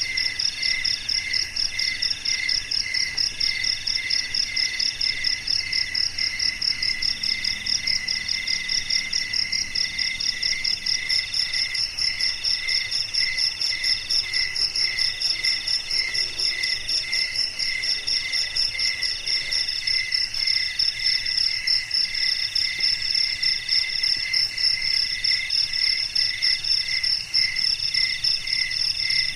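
Night chorus of crickets and other insects: several calls overlap at different pitches, a high continuous trill, a long call in the middle that breaks off every second or two, and a lower chirp pulsing a few times a second.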